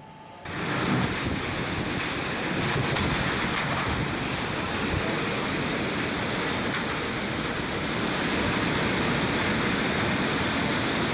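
Steady noise of a storm, heavy rain and strong wind, starting about half a second in.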